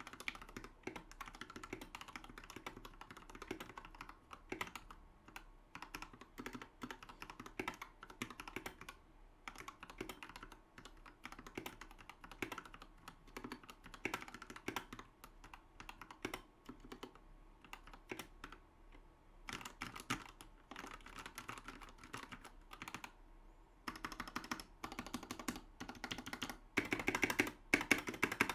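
Typing on a GK64XS 60% mechanical keyboard fitted with hand-lubed Gateron Black linear switches and PBT keycaps: a steady stream of keystrokes, with a faster, louder run of typing near the end.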